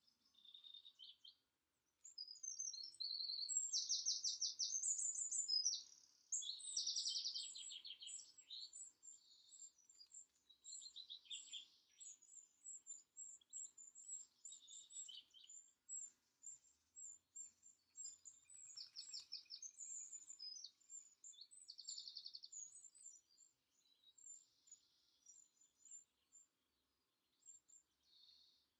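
Several songbirds singing at once: a steady run of quick, very high chirps with louder trilled phrases every few seconds, the loudest phrases in the first several seconds.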